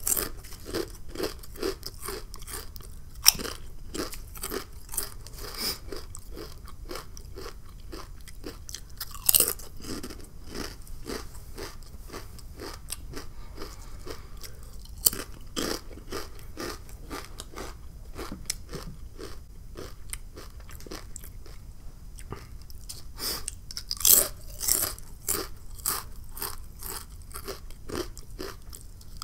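Kettle-style potato chips being bitten and chewed, a crisp crackling crunch that goes on throughout, with louder crunches as a fresh chip is bitten a few times.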